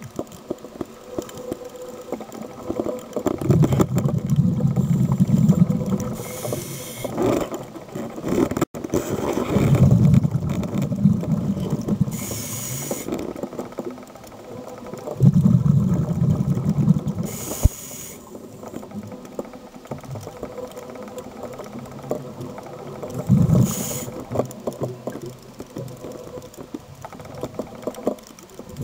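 Scuba regulator breathing underwater, four breaths about six seconds apart. Each is a low rumble of exhaled bubbles lasting two to three seconds, then a short hiss as the diver inhales through the demand valve.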